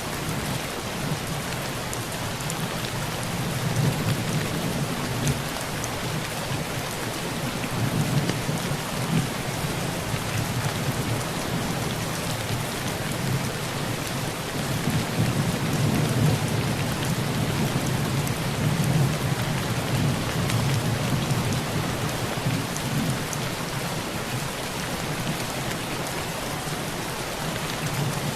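Heavy rain falling steadily on a tin roof, with low rolling thunder that swells and fades twice.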